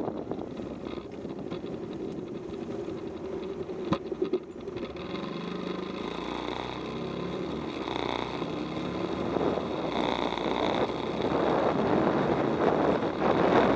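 Bajaj Pulsar's single-cylinder motorcycle engine running on the move, heard through wind noise on the camera's microphone. The engine note pulls up after about five seconds, with a sharp click about four seconds in, and the wind rush grows louder near the end as the bike gathers speed.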